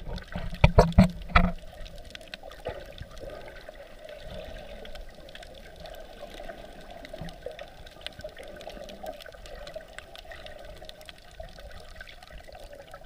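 Underwater sound heard through a submerged action camera's housing: a few loud knocks in the first second and a half, then a steady muffled wash of water with faint scattered crackling clicks.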